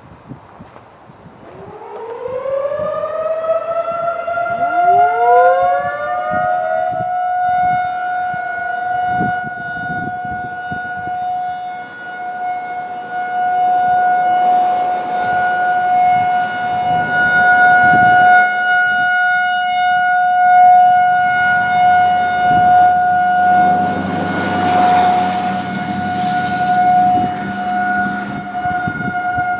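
Federal Signal 2001-SRN outdoor warning sirens winding up from silence to a steady tone, a second siren joining a few seconds later and climbing to the same pitch. They then hold one steady pitch, the level swelling and fading as the rotating horns sweep around.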